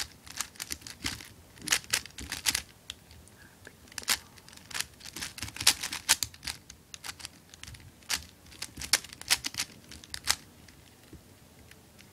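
Non-ridged Dayan Megaminx puzzle being turned fast by hand: irregular bursts of plastic clicking and clacking as its faces are twisted, in quick flurries with short pauses between.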